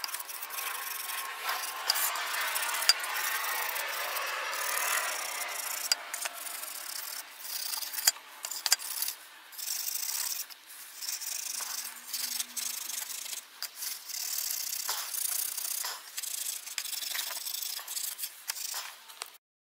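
Steel wool scrubbing over a dimple-hammered aluminium sheet, a scratchy rasping hiss, rubbing black spray paint off the raised dimples so the black stays only in the hollows. It runs fairly steadily at first, then in shorter strokes with brief gaps and a few sharp clicks.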